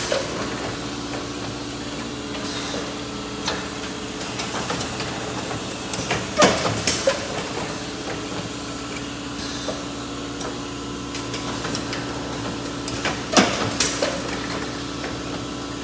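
Sencorp plastics packaging machine running through its cycle: a steady hum, with a cluster of clattering knocks about every seven seconds and a short hiss about midway between them.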